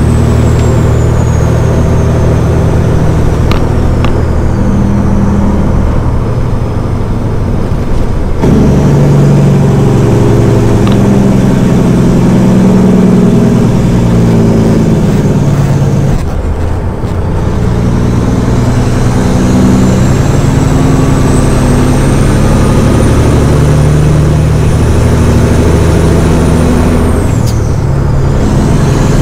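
Straight-piped Caterpillar 6NZ inline-six diesel with a stage 1 turbo, heard inside the semi truck's cab while it pulls through the gears. The engine note changes at gear shifts about eight and sixteen seconds in, and a high turbo whistle rises, holds, then falls away suddenly near the end.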